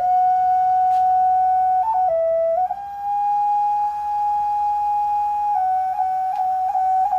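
A handmade flute played slowly in long held, breathy-pure notes that step up and down a little now and then, with a few quick grace-note flicks near the end. This is soft, melody-free playing meant as soothing meditation background.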